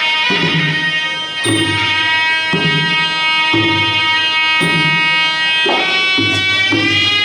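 Traditional Khmer boxing ring music: a sralai reed pipe plays a held, wavering melody over a steady skor drum rhythm, with a light cymbal tick every few seconds.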